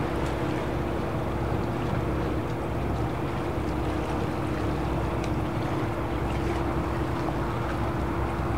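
A boat's engine running steadily: an unchanging low drone with a constant hum tone, over a haze of water noise.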